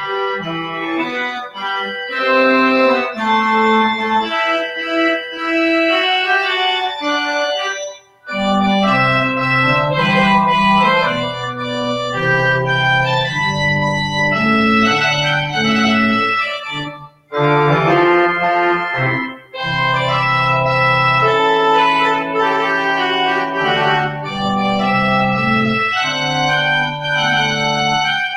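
Church organ playing the postlude in held chords and phrases. There are brief breaks about eight, seventeen and nineteen seconds in, and deeper bass notes join after the first break.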